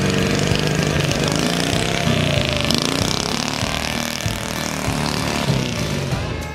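A motor engine running loudly, its pitch dipping and rising again about two to three seconds in.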